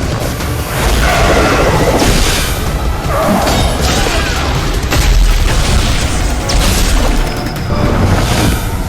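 Edited fight soundtrack: deep booms and crashing impacts layered over dramatic music.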